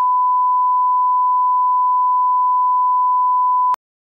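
Bars-and-tone reference tone: a steady, pure 1 kHz sine tone. It cuts off abruptly with a click near the end.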